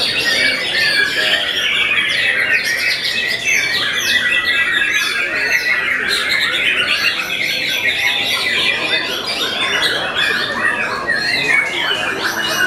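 Several white-rumped shamas (murai batu) singing at once: a dense, unbroken chorus of rapid overlapping whistles, trills and harsh chattering notes.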